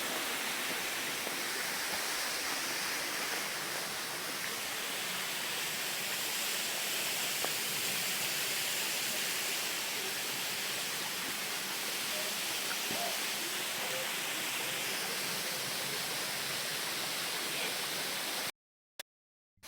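Steady rushing of a waterfall, an even wash of falling water with no change in strength; it cuts to silence for about a second near the end.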